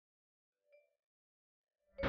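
Near silence, with one faint, brief chime-like note about a third of the way in.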